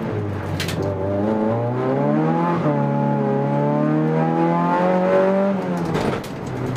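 Race car engine heard from inside the cabin, accelerating hard with the pitch climbing, shifting up once partway through and pulling on, then lifting off near the end with a flurry of rattling clicks.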